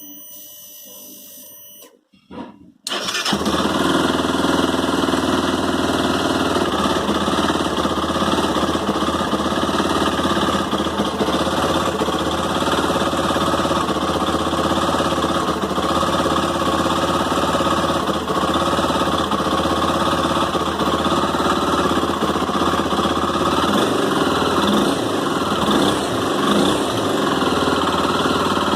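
Honda CB 300's single-cylinder engine being started: a faint starter whine for about two seconds, a brief pause, then the engine catches about three seconds in and keeps running steadily. This is the start-up noise the owner is asking about, which he describes as snapping inside the engine, worse in the morning.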